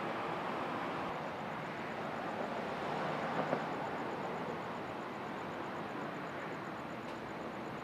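Street traffic noise, steady, swelling as a vehicle passes about three seconds in, with two brief clicks at its peak.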